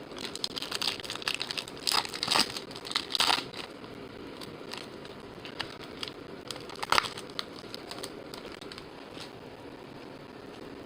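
Crinkling and rustling of a foil trading-card pack wrapper being handled, in several bursts over the first few seconds and once more about seven seconds in.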